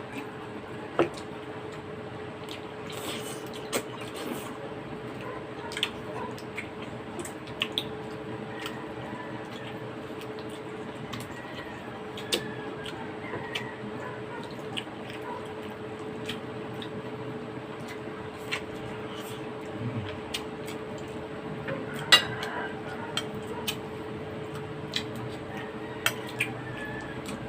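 Spoons and forks clinking on bowls and plates while bulalo soup is eaten, with occasional wet eating sounds. Scattered sharp clinks over a steady hum; the loudest clinks come about a second in, about twelve seconds in and about twenty-two seconds in.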